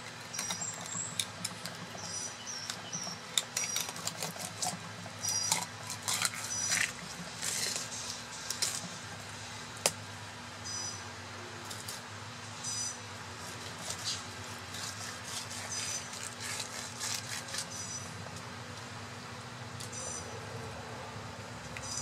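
Serrated fillet knife cutting and scraping through a yellowtail snapper on a wooden cutting board in short, irregular strokes, over a steady low hum.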